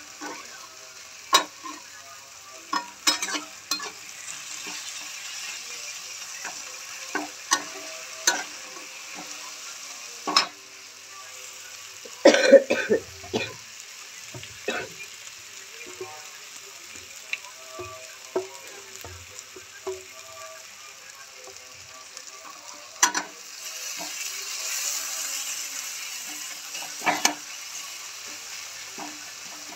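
Tomatoes and onions sizzling in oil in a metal kadai, the tomato-onion masala for palak dal, with a steady hiss. A metal spatula scrapes and knocks against the pan every few seconds, with the loudest clatter about twelve seconds in.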